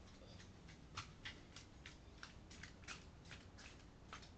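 Near silence, broken by about a dozen faint, irregular clicks, a few a second, over a low steady hum.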